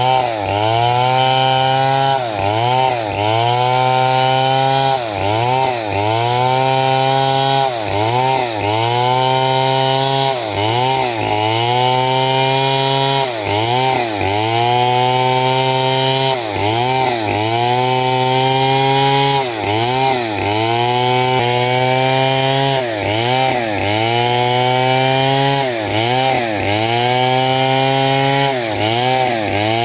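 Stihl two-stroke chainsaw running at high revs and making repeated quick cuts through small 6×6 cm wood. About once a second the engine pitch sags as the chain bites and then climbs back up as it clears the cut.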